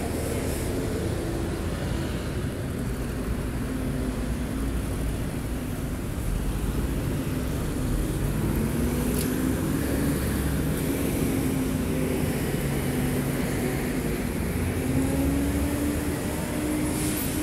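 City street traffic: road vehicles passing with a steady low rumble, and an engine note that rises and falls in pitch as vehicles speed up and slow down.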